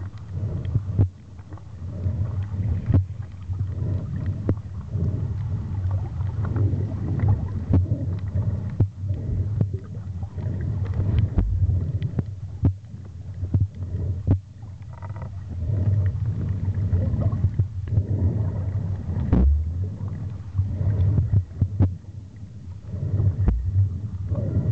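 Muffled underwater rumble from a camera filming below the surface, with water moving against it and irregular knocks and taps from handling.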